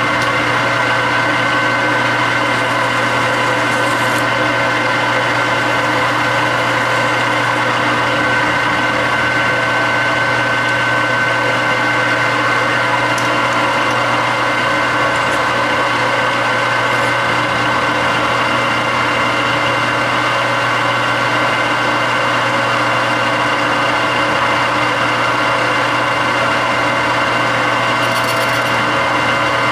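Metal lathe running steadily with an even hum and whine, taking a facing pass across a tractor rear axle bearing hub held in a four-jaw chuck.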